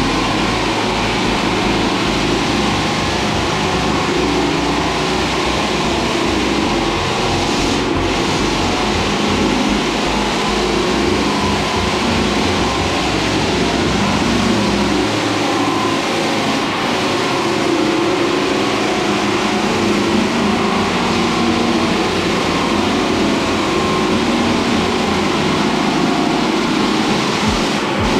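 Floor sanding machine running steadily and loudly, sanding the wooden floor.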